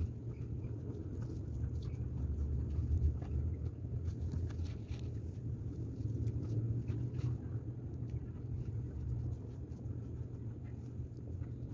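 Steady low rumble under faint, scattered rustles and snaps of leafy vegetables being handled and picked by gloved hands.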